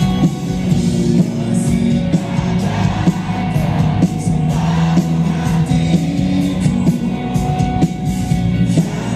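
Live rock band playing with singing, heard from among the audience in a large hall.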